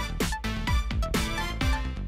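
Background electronic music with a steady beat, a kick drum about twice a second under short synth notes.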